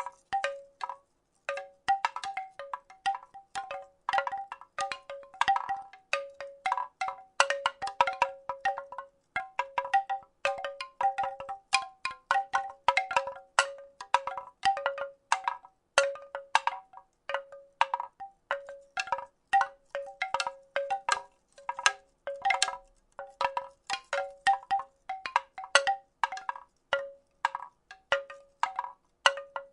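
Wooden rattle shaken continuously: quick, irregular wooden clacks, several a second, each with a brief pitched ring.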